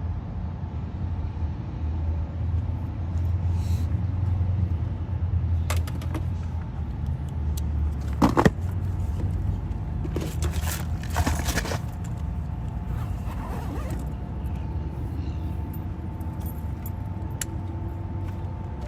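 Steady low rumble of road traffic, with scattered clicks and rattles; the loudest click comes about eight seconds in, and a cluster follows a few seconds later.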